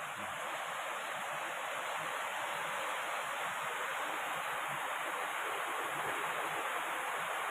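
A steady, even rushing hiss.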